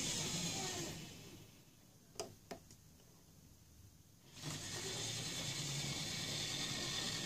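Mainline model GWR pannier tank locomotive and its wagons running on model railway track: a steady rumble and hiss of motor and wheels. It fades almost to silence about a second in, with two small clicks, then comes back suddenly near the middle and runs on steadily.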